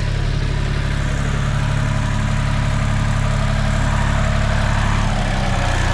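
Farm tractor engine idling steadily, its note shifting slightly about five seconds in.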